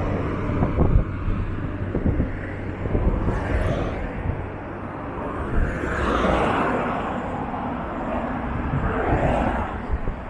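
Road traffic passing on a multi-lane bridge: a steady rumble of engines and tyres that swells as vehicles drive close by, about six seconds in and again near the end.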